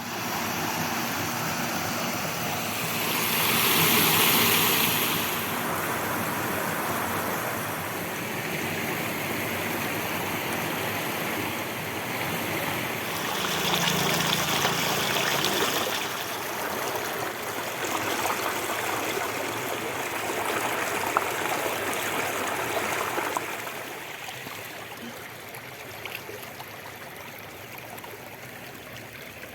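Steady running water, swelling twice and growing quieter about three-quarters of the way through.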